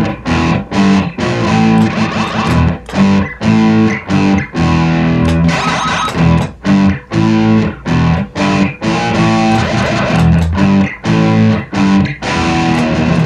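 Rickenbacker electric guitar strummed in fast, choppy rhythmic chords with brief breaks between strokes, played through a delay pedal that is kicked on for a transition.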